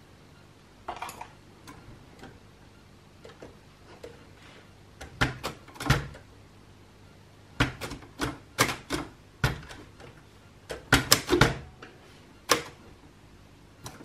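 Hermes 2000 manual typewriter being typed on: sharp, irregular key strikes, the typebars hitting the paper. A few faint ones in the first seconds, then louder strikes coming in uneven bunches from about five seconds in.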